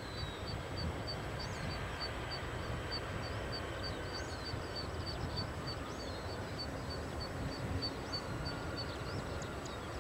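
Distant low rumble of a landed FedEx Airbus A310 freighter slowing on the runway. Over it a bird repeats a high, evenly spaced note about two or three times a second, with a few other short chirps.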